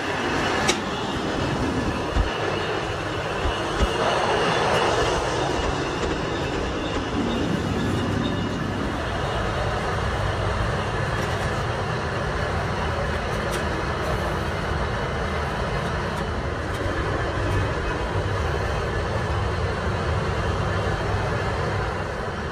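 Steady rumbling foundry-yard noise with a few sharp knocks in the first few seconds and a louder stretch about four seconds in.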